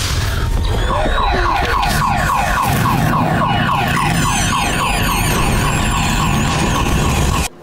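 A loud, overwhelming cacophony of sensory-overload sound effects: an alarm-like warble repeating about three times a second over a low rumble, cutting off suddenly near the end.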